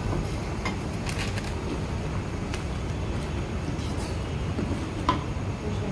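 Cucumber sambar boiling hard in a pot, a steady bubbling rumble, with a few light clicks as a spatula stirs it.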